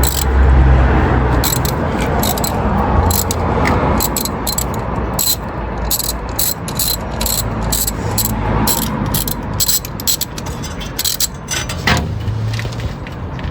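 Socket ratchet clicking in quick, irregular runs while a spark plug is worked in the engine bay of a 1976 Chevy C20 V8, over low rumbling handling noise.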